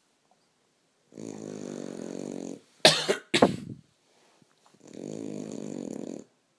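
French bulldog snoring, typical for the breed: two long snores, with two short, much louder bursts of breath between them about halfway through.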